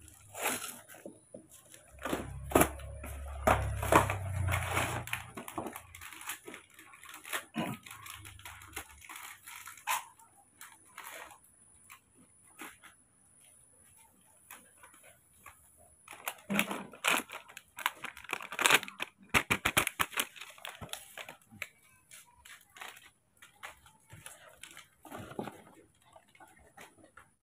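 Foil milk-powder packet crinkling and tearing, with the cardboard formula box rustling as it is opened and handled, in scattered bursts mixed with small clicks and knocks.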